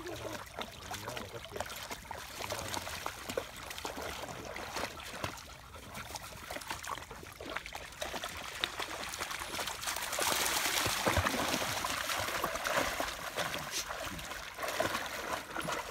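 Shallow river water splashing and sloshing as several dogs wade and swim through it, louder for a few seconds from about ten seconds in.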